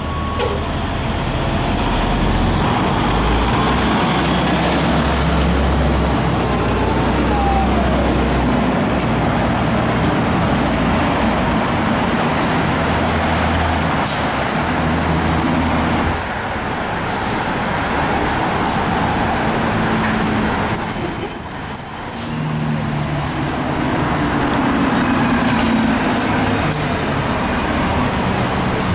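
Articulated city bus passing close at low speed, its engine a low drone over steady street traffic, which carries on after the bus has gone by. A brief high squeal is heard about two-thirds of the way through.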